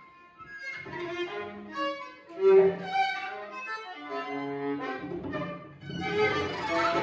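Viola and cello improvising together: after a brief hush, a run of short bowed notes at shifting pitches, growing fuller and louder near the end.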